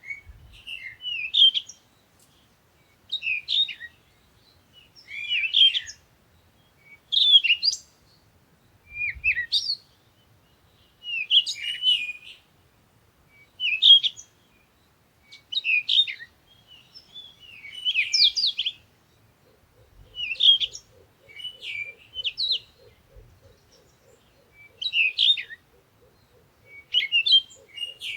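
Songbird chirping in short, quick phrases that repeat about every two seconds, with brief pauses between them.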